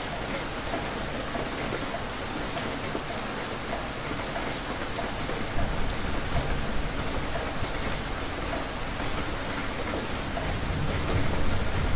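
Heavy rain pouring steadily, with a low rumble of thunder swelling about halfway through and again near the end.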